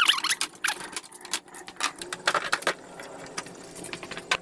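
Rapid, irregular clicking and metallic clatter of tools and trim parts, sped up in a time lapse, as the front grille and trim are taken off a Land Rover Discovery 4.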